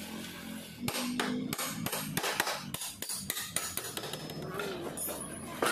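Hammer blows on the steel body of an old scooter: a quick, irregular series of sharp metallic knocks, about three a second, starting about a second in.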